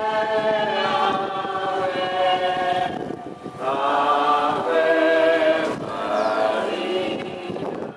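A group of voices singing a slow hymn in long held notes, with a short break about three seconds in and another near six seconds.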